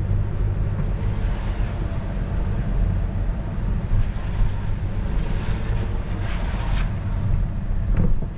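A car driving on a wet road, heard from inside the cabin: a steady low rumble of road and engine noise with tyres hissing on the wet pavement, swelling a little about five to seven seconds in.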